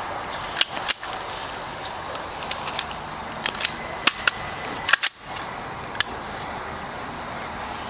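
Gunshots on a shooting range: about a dozen sharp reports at uneven intervals, the loudest pair about five seconds in.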